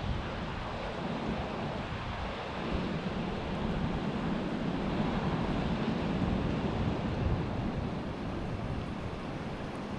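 Steady rushing noise of wind and sea, with wind buffeting the microphone.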